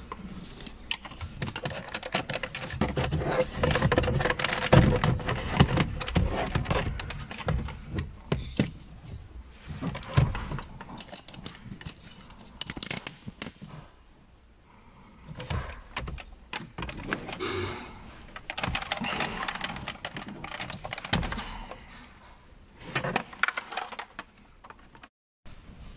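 Hard plastic dashboard trim of a Renault Twingo being handled and prised apart: clattering clicks, rattles and small knocks in bursts, busiest in the first third, with a quieter pause about halfway through.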